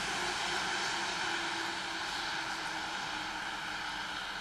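Steady outdoor background hiss with a faint, distant engine drone that wavers slightly in pitch.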